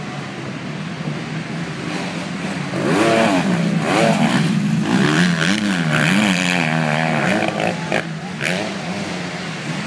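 Motocross bike engines: a steady engine drone, then from about three seconds in a nearer bike revving up and down over and over as it comes down a steep dirt descent, loudest in the middle and easing off near the end.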